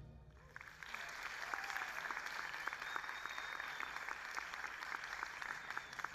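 Audience applauding, the clapping beginning about half a second in as the music's last chord fades and then holding steady.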